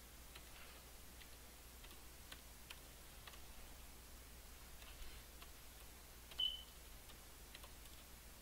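Near silence over a low hum, with faint scattered clicks and one short high beep about six seconds in.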